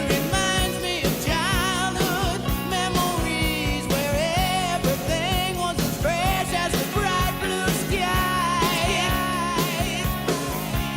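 Background music: a pop song with a singing voice over a steady drum beat.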